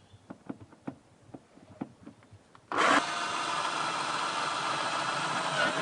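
A few light clicks and knocks of handling, then about three seconds in an electric power tool starts abruptly and runs steadily at full speed, loud and even.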